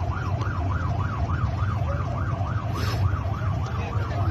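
Emergency-vehicle siren in a fast yelp, its pitch sweeping up and down about three to four times a second, over a steady low rumble.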